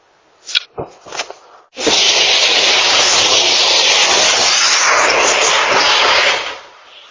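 A few short knocks, then a loud, steady rushing hiss for about four and a half seconds that fades out near the end.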